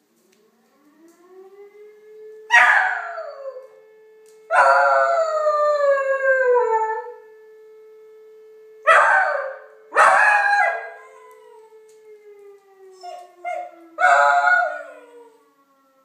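Beagle howling in response to a siren: about six loud howls, most sliding down in pitch and the longest lasting over two seconds, with a couple of short yelps near the end. Under them the siren's long wailing tone rises, holds steady, then slowly falls.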